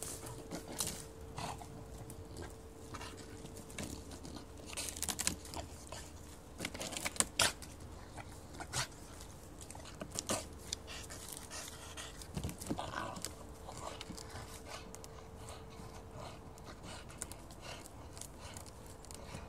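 A bulldog biting and chewing on fallen wood: irregular sharp cracks and crunches, with her panting.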